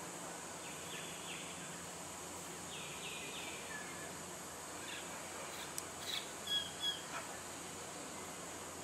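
Outdoor ambience of a steady high insect hum, with faint down-slurred bird chirps scattered through and a few short, louder bird calls between about six and seven seconds in.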